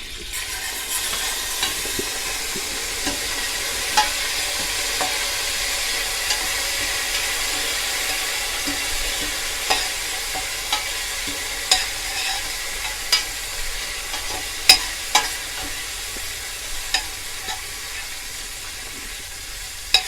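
Curry leaves sizzling in hot ghee with frying mustard, cumin and fennel seeds, a loud hiss that swells up about half a second in and slowly eases off. Sharp clicks and pops are scattered through it.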